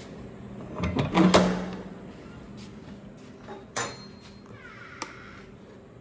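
A room door being opened and shut: a cluster of knocks and rattles about a second in, then a single bang nearly four seconds in. A wall light switch clicks once about a second later.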